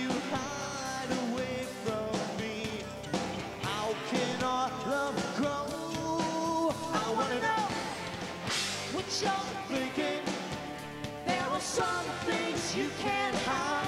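Live rock band playing: electric guitars and drums, with a voice singing into the microphone.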